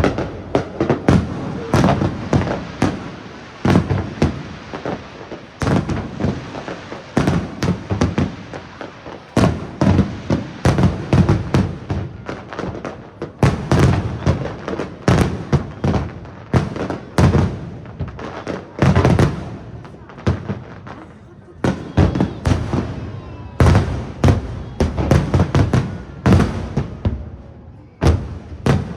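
Aerial firework shells bursting in quick, irregular succession: dozens of sharp booms, often overlapping, each dying away briefly, with short lulls near the end.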